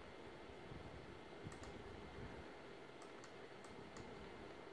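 Faint, sharp computer keyboard and mouse clicks over a low room hum, a few of them in quick succession in the second half.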